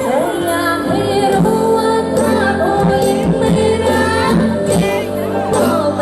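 Loud live band music from a Thai rot hae (sound-truck band), with a singer's voice over keyboard and bass.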